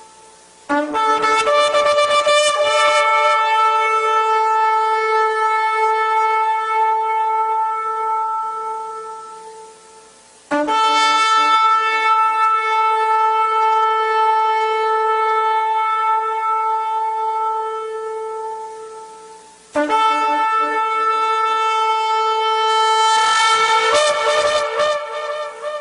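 Shofar (ram's horn) blown in three long blasts. Each opens with a short low note, jumps to a held higher note and fades out. The last blast turns rough and wavering near the end.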